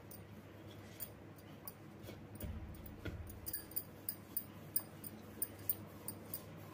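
Hands rolling layered sheets of soft dough into a log on a wooden board: faint rubbing with scattered small sticky clicks, which come more often from about three seconds in.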